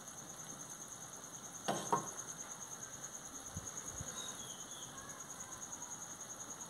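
An insect chirping steadily in a fast, even pulse of about four or five chirps a second, with two sharp knocks close together about two seconds in.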